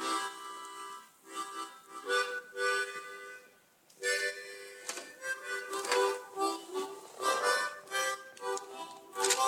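Harmonica played in short chordal phrases, with a brief breath pause about a second in and a longer gap near the middle.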